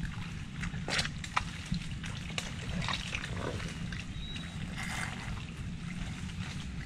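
Water sloshing and trickling, with scattered small splashes and clicks over a steady low rumble.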